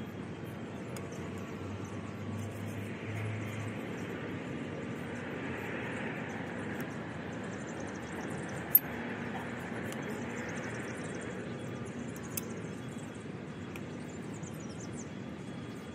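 Steady outdoor background hum, with a sharp click about nine seconds in and a fainter click a few seconds later as the sections of a stand-up paddleboard paddle are fitted together.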